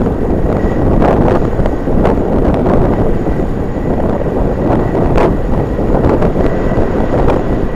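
Strong wind buffeting the microphone: a loud, gusting rumble, with a faint steady high whine underneath.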